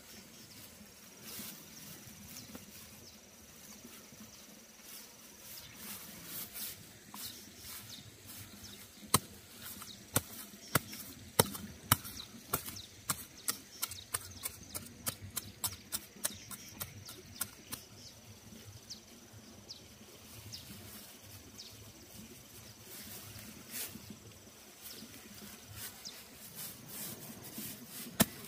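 Dry straw mulch rustling and crackling while a curved knife digs into the soil beneath it and hands press the earth down, with a long run of sharp clicks and crackles through the middle.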